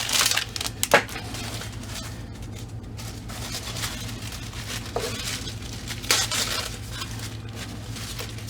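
Plastic packaging crinkling and rustling as a small item is unwrapped by hand, with sharper crackles about a second in and again around five and six seconds in.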